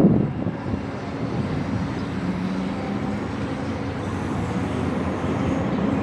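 Passenger train hauled by an EJ575 electric locomotive approaching: a steady low rumble with a faint hum, slowly growing louder.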